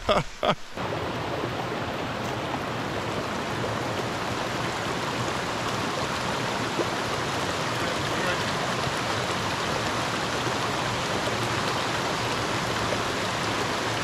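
Shallow rocky stream rushing over stones: a steady, even rush of water that sets in about a second in and holds unchanged.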